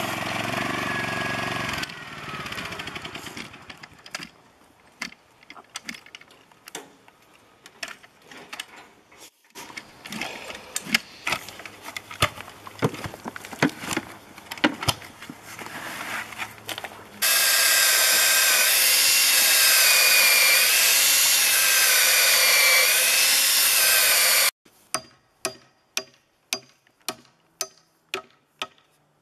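Fence-building tool work: a run of scattered knocks and strikes, then a loud, steady power-tool noise that lasts about seven seconds and cuts off abruptly. About ten evenly spaced sharp strikes follow near the end.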